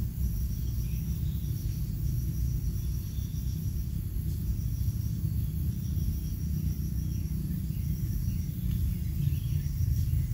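Outdoor grassland ambience: a steady low rumble under insects trilling in rapid, even pulses and a thin, constant high whine, with a few faint chirps near the end.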